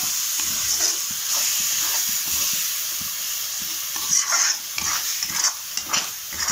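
Tomato purée and masala sizzling in a metal kadhai while a steel spatula stirs and scrapes through it. The sizzle is steady at first, then about four seconds in it breaks into a quick series of scraping strokes.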